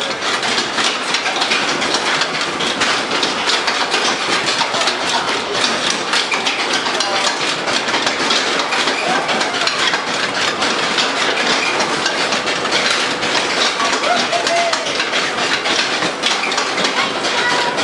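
Whip amusement ride in motion: its cars rattling and clattering steadily as they run around the track.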